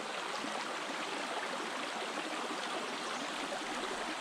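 Small mountain stream running steadily, an even rush of flowing water.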